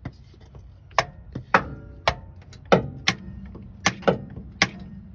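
A metal bar tapping on the starter motor of a 2005 Dodge Ram: about seven sharp metallic knocks, some ringing briefly. The taps are meant to free a starter that won't crank, a sign that the starter is about to fail.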